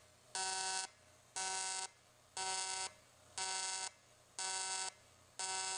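AC TIG welding arc on aluminium sheet from an Everlast 210EXT on its pulse setting, buzzing in regular pulses: a loud buzz about half a second long, then a quieter gap, about once a second, six times. This is the welder's electronic pulse cycling the arc between high and low current.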